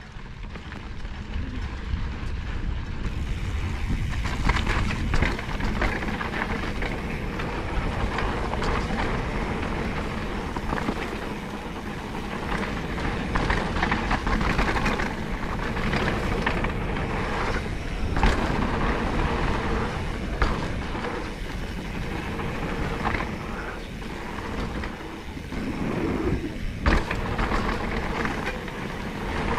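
Mountain bike riding fast down a dirt and rock trail: wind rushing over the camera microphone and tyres rolling and crunching over loose stones, with sharp knocks and rattles as the bike hits bumps.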